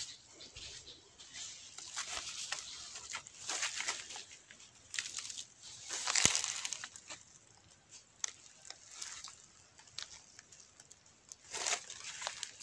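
Dry leaf litter and twigs rustling and crackling in irregular bursts as something moves through them, with a louder crack about six seconds in.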